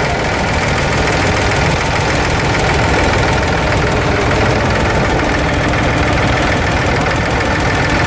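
Diesel engine of an abra water taxi running steadily with a fast, even low chugging.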